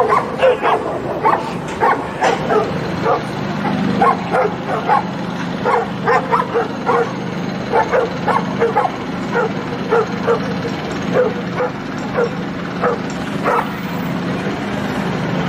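A pack of street dogs barking at a leashed police dog: a rapid, uneven run of short barks, about two or three a second, that thins out near the end, over a steady low hum.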